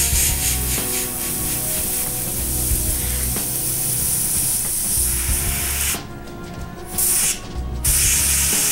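Airbrush spraying paint at low pressure: a steady airy hiss that stops twice for a moment near the end as the trigger is let off.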